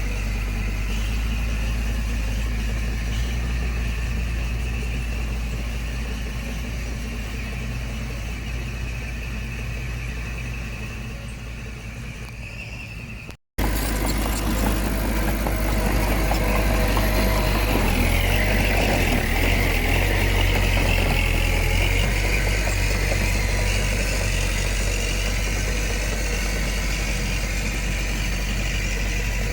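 Diesel engine of heavy earthmoving machinery running steadily. It cuts out for a moment about halfway through and comes back louder, with a high whining squeal for a few seconds.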